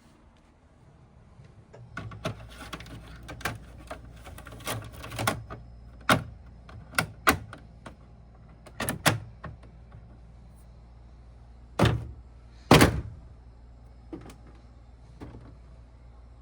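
Plastic clicks and knocks of an air conditioner's dust filter and front panel being handled and snapped into place: a dozen or so irregular sharp clicks, the two loudest knocks near the end, over a faint steady low hum.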